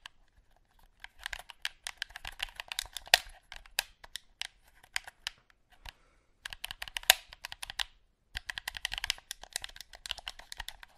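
Rapid, irregular clicking of plastic buttons or keys, in three runs broken by two short pauses: the sound effect of game buttons being pressed hard and fast.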